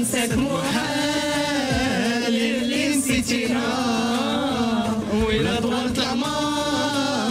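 Arabic song sung into a studio microphone, the voice holding long, wavering notes over a musical backing.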